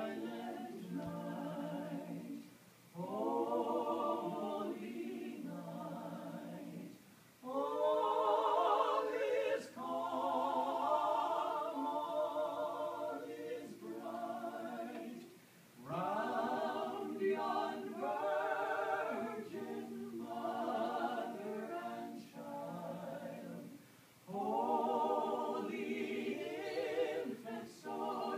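A small group of carolers singing a Christmas carol a cappella, men's and women's voices together, in phrases with short breaks between them.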